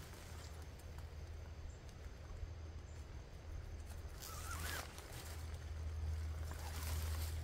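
Nylon tent fabric rustling as it is pulled and shaken out during setup, loudest about four seconds in, over a steady low hum.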